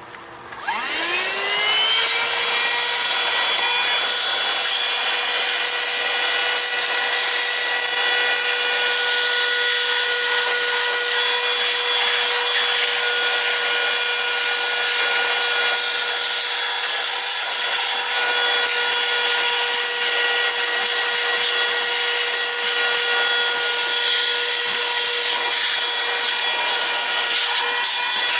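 Baucatlan 12V 150 W corded portable car vacuum cleaner switched on: its motor whine rises quickly as it spins up, then runs at a steady high pitch.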